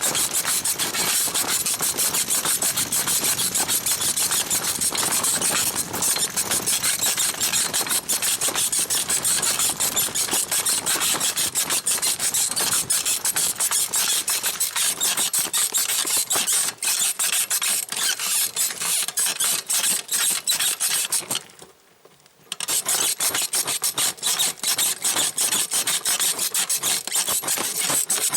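Springs of a 1970s sprung bicycle saddle squeaking and rubbing in a fast, steady rhythm as it is bounced on. The squeaking stops for about a second roughly three-quarters of the way through, then resumes.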